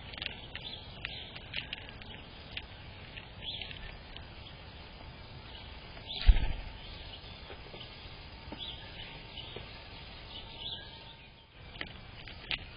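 Small birds chirping in short, scattered calls over a steady background hiss, with one loud low thump about six seconds in.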